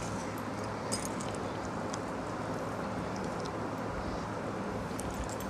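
Steady low room hum and hiss, with a few faint clicks and clinks of hands and bangles working rice on steel plates; one tap about a second in is slightly louder.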